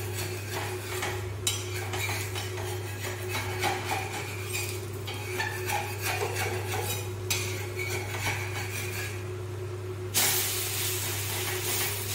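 Metal spatula scraping and tapping on a tawa as an uthappam is loosened and flipped, over a steady low hum. About ten seconds in, a sudden louder sizzle starts as the topped, oiled side of the uthappam meets the hot griddle.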